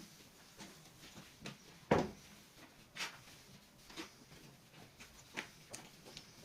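Light knocks and clicks at irregular intervals, roughly one a second, the loudest about two seconds in.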